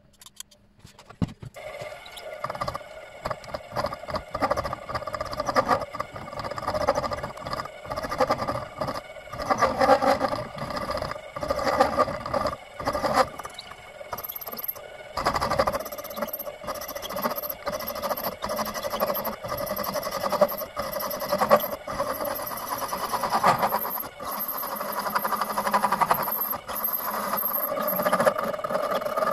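A small machine tool cutting metal, with a steady squeal and irregular short scraping knocks.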